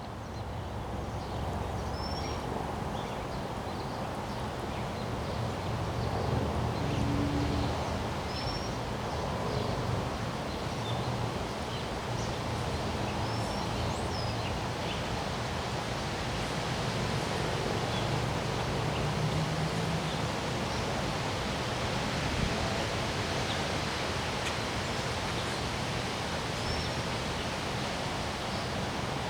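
Wind blowing steadily, as a rushing noise that swells a little now and then, with a few short high bird chirps scattered through it.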